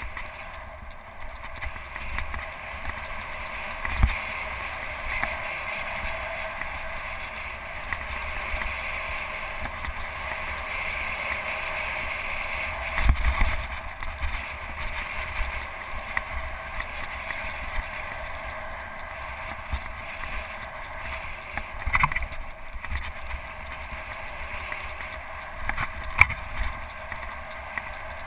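Mountain bike ridden fast along a dirt singletrack: a steady rushing of wind and rolling tyres, broken by a few sharp knocks as the bike hits bumps in the trail.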